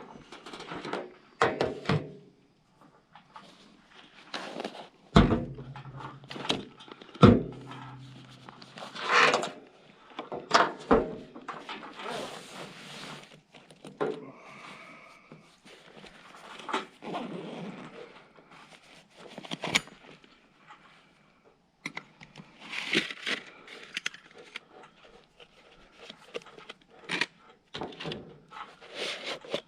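Camp gear being handled: irregular knocks, thunks and scrapes, with two heavier thumps about five and seven seconds in.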